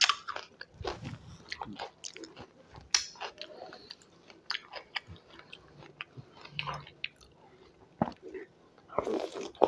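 Close-miked chewing and biting of curd-soaked katori chaat: irregular crisp crunches from the fried basket pieces mixed with wet, squishy mouth sounds, with a louder burst of chewing near the end.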